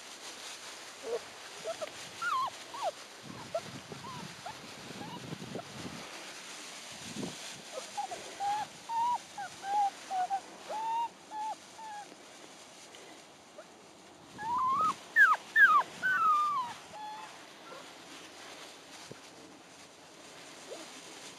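Braque du Bourbonnais puppies whining and yipping in short, high calls that come in groups: a few near the start, a run of short calls in the middle, and a louder cluster of yelps later on. A spell of rustling through dry grass comes a few seconds in.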